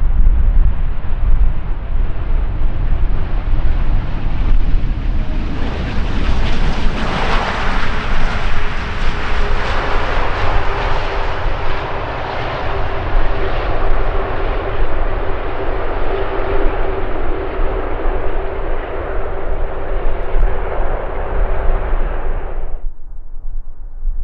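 Emirates Airbus A380's four jet engines as it comes in to land: loud jet noise with a steady hum swells as it passes, then slowly fades. The sound cuts off abruptly near the end.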